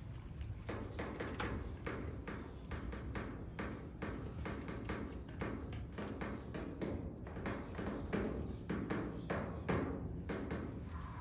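Small child's bicycle with training wheels being pushed over rough concrete: an irregular run of clicks and rattles, a few each second.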